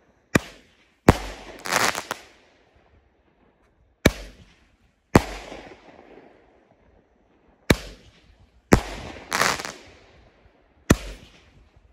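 A Pyro King Hot & Wild Roman candle firing its shots. The bangs come in pairs about a second apart, four pairs in all, each shot ending in a hard break, and two of the breaks trail into crackling.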